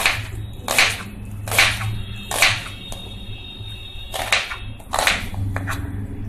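Kitchen knife slicing a red onion on a plastic cutting board: about six cuts, most a second or less apart, with a short pause in the middle.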